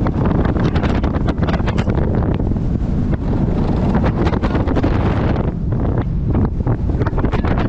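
Wind blasting the microphone of a camera riding on a quad-bike-style roller coaster car at speed, over the steady rumble of the car on its steel track, with frequent short clatters.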